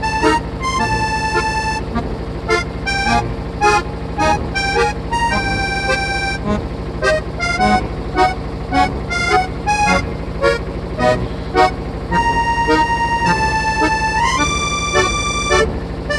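Light background music: a melody of short, quick notes with some longer held tones, over a steady low hum.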